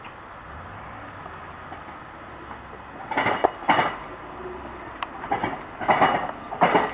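Hi-rail pickup truck rolling on the track: a low, steady engine hum, then from about three seconds in its steel rail wheels clank sharply over the rails several times, irregularly spaced.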